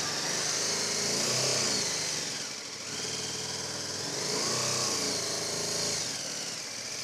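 Adventure motorcycle engine running, with throttle blips that rise and fall twice.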